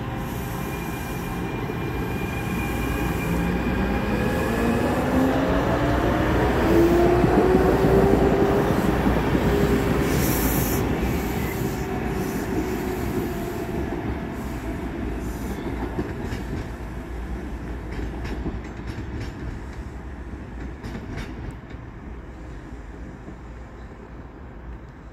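SEPTA Norristown High Speed Line N-5 electric railcar pulling out of the station: its motor whine rises steadily in pitch as it accelerates, loudest as it passes. Then the running noise fades as it draws away, with faint clicking of the wheels over the rails near the end.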